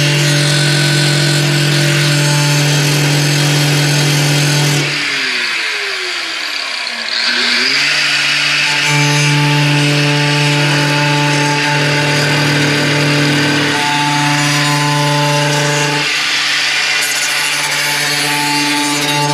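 Handheld electric power tool cutting the car body's sheet metal: a steady motor whine with a harsh cutting hiss. About five seconds in the motor is let off and winds down in pitch, then spins back up and runs on.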